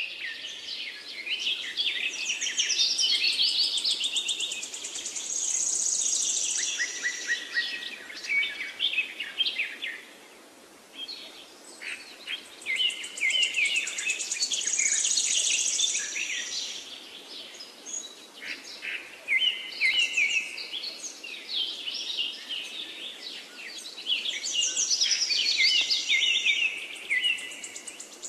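Birdsong: many birds chirping and trilling in dense, overlapping phrases, easing off briefly about ten seconds in.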